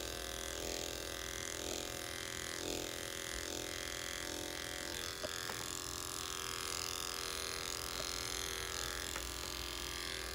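Electric dog-grooming clippers running with a steady hum, shaving down a curly coat.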